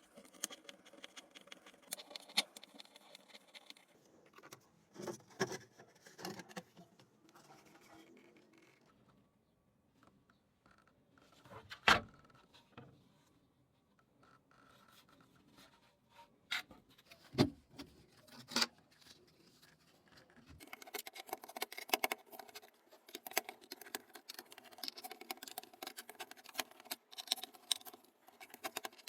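Small plastic keyboard parts being handled and worked on: scattered clicks and scrapes, a few sharper knocks around the middle, then a dense run of quick clicking and rubbing from about two-thirds of the way in.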